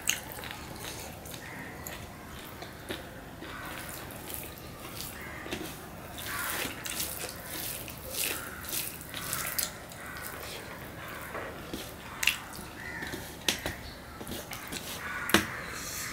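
Eating with the hand: fingers kneading rice and curry on a steel plate, and wet chewing and smacking. A few sharp clicks stand out, the loudest about fifteen seconds in.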